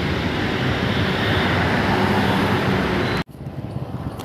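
Steady roar of road traffic beneath a flyover, cut off suddenly about three seconds in, with quieter street sound after it.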